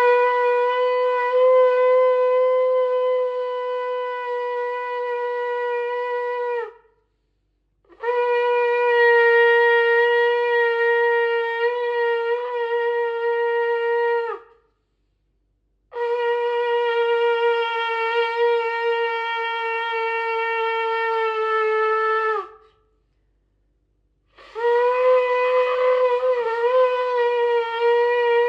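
Shofar blown in four long, steady blasts of six to seven seconds each, with short pauses between them; the last blast wavers slightly in pitch.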